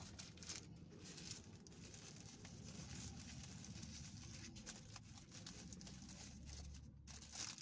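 Paper burger wrapper crinkling faintly as a Wendy's Double Stack cheeseburger is handled and unwrapped.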